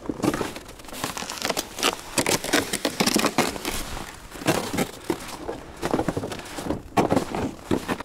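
Footsteps crunching on snow and ice, an uneven series of crackling crunches.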